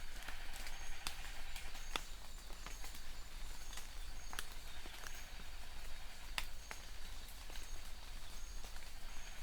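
Rain falling steadily, with scattered heavy drops tapping sharply about once a second. Short high chirps repeat faintly through it.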